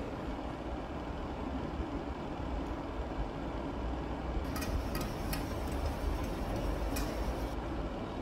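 Chef's knife cutting a tomato on a plastic chopping board: several sharp taps of the blade against the board from about halfway through, over a steady low rumble.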